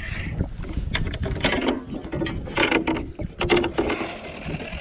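A bow-mount trolling motor being handled and raised on a small fishing boat, giving irregular mechanical clicks and clunks from its mount and shaft.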